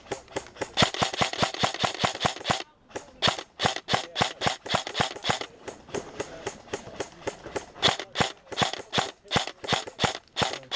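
Airsoft guns firing: a quick string of shots about a second in, then irregular single shots and short bursts.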